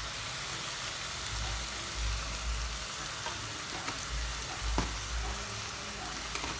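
Oil sizzling steadily in a pan as grated tomato, garlic and ground spices fry in it, with a few sharp clicks of a utensil against the pan.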